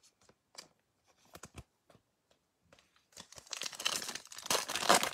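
A few faint ticks, then, about three seconds in, the foil wrapper of a Mosaic football card pack is torn open by hand with loud crinkling and tearing.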